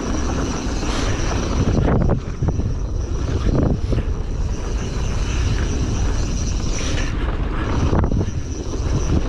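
Wind rushing over a helmet-mounted camera, mixed with the rumble and rattle of a mountain bike descending a dirt trail at speed. A thin, steady high whine runs through it and breaks off for about a second around seven seconds in.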